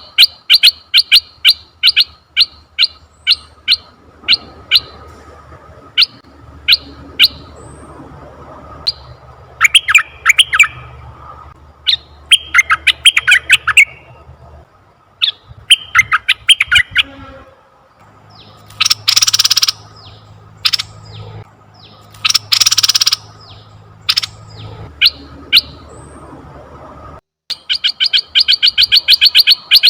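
Asian red-eyed bulbuls calling: a rapid run of short, sharp chirps, then scattered single notes and brief trills, with two harsh rasping calls about a second long midway through; the quick chirp series starts again near the end.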